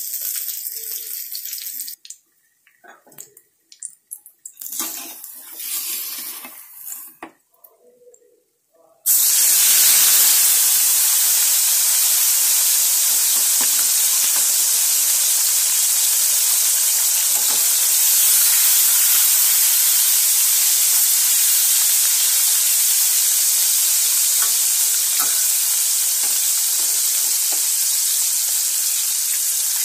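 Climbing perch (koi fish) frying in hot oil in a kadai: a sizzle. It is broken and quieter, with short gaps, for the first several seconds. From about nine seconds in it runs loud and even.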